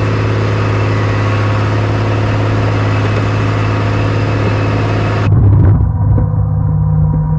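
Bombardier BR-160 snowcat engine running steadily with a strong low hum while the machine pushes snow with its blade. About five seconds in, the sound cuts to a louder, muffled rumble.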